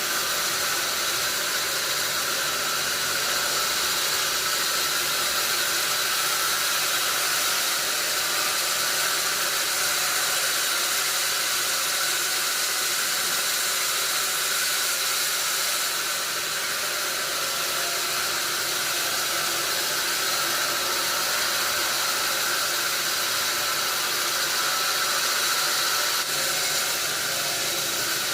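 Sawmill saw cutting lengthwise through a wadang log, a steady hissing whine that holds unbroken throughout.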